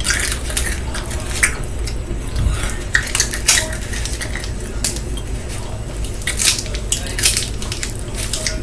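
A plastic M&M's candy wrapper being worked open by hand, crinkling and crackling in a run of irregular sharp crackles.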